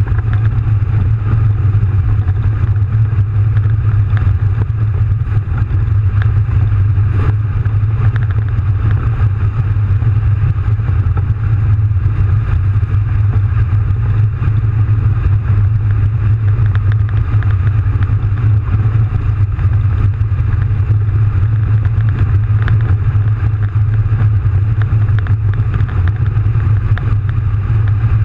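Soviet AT-S artillery tractor's 39-litre V12 diesel engine running steadily under way, heard inside the cab as a loud, low drone, with occasional knocks from the tracked vehicle.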